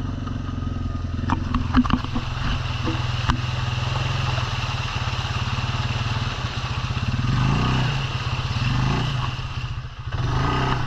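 Four-wheeler (ATV) engine running under load, with a few knocks about two seconds in. The engine revs up and eases off twice near the end.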